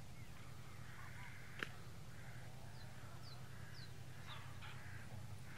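Birds calling: harsh calls and a few short, high, falling chirps over a steady low hum, with one sharp click about one and a half seconds in.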